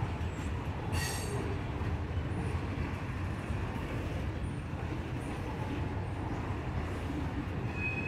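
Norfolk Southern freight train rolling past: a steady low rumble of the cars on the rails, with a short metallic ring about a second in and a brief high squeal near the end.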